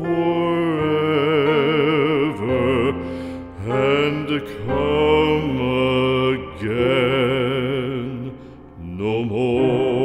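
Background music: a slow melody of long held notes with a steady vibrato, in phrases of a second or two separated by brief dips, the deepest dip near the end.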